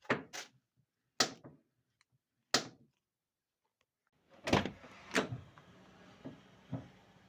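Car door of a 46-year-old Mitsubishi being swung and shut, giving a series of sharp knocks and thunks, the two loudest about four and a half and five seconds in.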